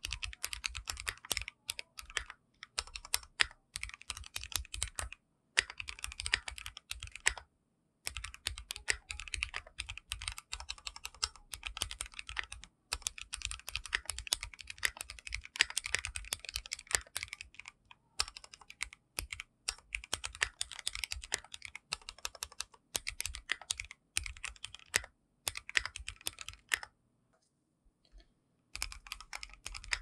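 Fast typing on a Keychron Q1 full-aluminium mechanical keyboard with SA-profile ABS keycaps: rapid runs of key clacks lasting a few seconds each, broken by brief pauses. There is a longer pause of a second or two near the end.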